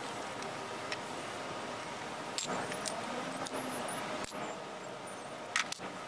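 A few sharp metal clicks and clinks as a scooter's front disc brake caliper is worked loose and lifted off to change the pads, over steady background noise.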